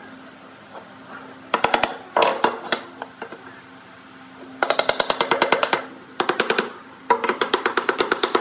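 Rapid, light hammer taps on a wooden frame, in several quick runs of about ten knocks a second with short pauses between.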